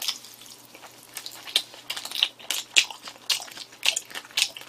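Close-miked chewing of a mouthful of spicy raw fish salad (hoe-muchim): wet, crunchy bites with irregular clicks, several a second.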